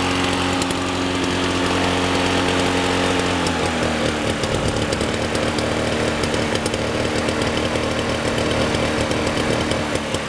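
Two-stroke Suzuki engine of a 1987 Toro GTS 120 lawn mower running steadily. About three and a half seconds in, its speed drops, and it settles into a lower, uneven idle.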